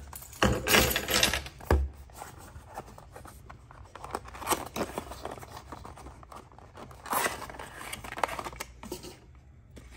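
Small cardboard diecast-car box being handled and opened by hand: rustling, scraping and tearing of card, with a few louder bursts.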